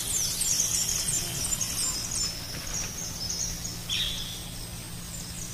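Streamside ambience: a steady rush of stream water under rapid, high-pitched chirping from insects and birds, with one brief lower chirp about four seconds in.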